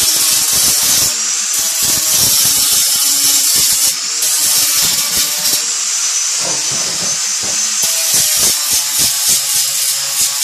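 Power tool whining steadily as it cuts the door opening out of a tent stove's body, with the pitch and load wavering in the second half as the cut goes on.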